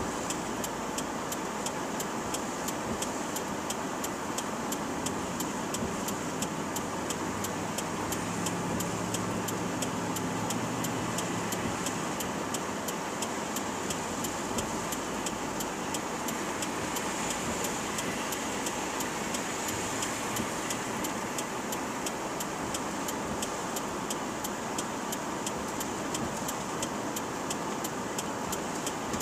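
Steady hiss of heavy rain and road noise heard inside a car's cabin, with an even, quick ticking running through it.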